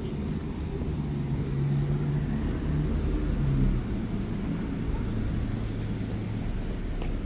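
A motor vehicle's engine running close by, a low steady hum that shifts to a lower pitch a little over halfway through.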